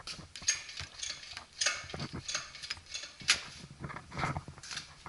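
Irregular mechanical clicks, rattles and scrapes from a walk-behind automatic transplanter being handled, with one sharper click about three seconds in.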